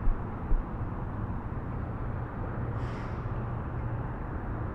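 Steady low rumble of road traffic, with a couple of brief low bumps near the start.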